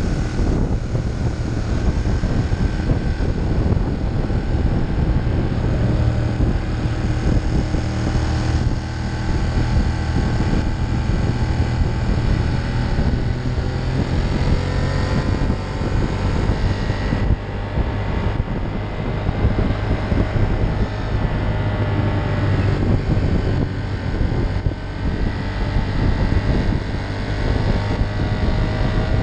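Ducati Monster 1200's L-twin engine running steadily on the move, its pitch gliding up and down as the throttle and speed change, with wind buffeting the microphone.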